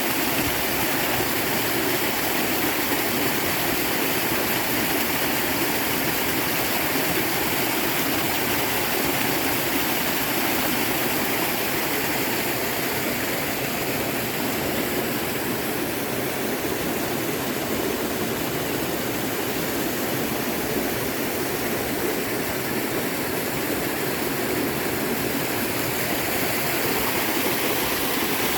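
Rushing water of a river and waterfall: a dense, steady hiss and roar.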